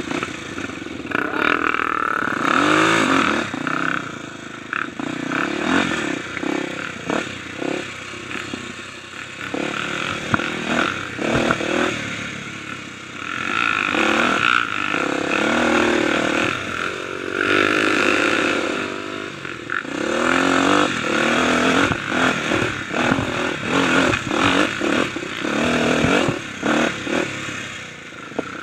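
Kawasaki dirt bike's single-cylinder engine revving up and down over and over as the throttle is worked on a rough trail, with clattering from the bike over bumps.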